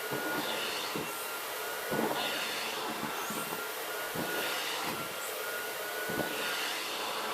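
Vacuum cleaner running with a steady whine, its nozzle drawn over a Maine coon cat's fur in strokes about once a second.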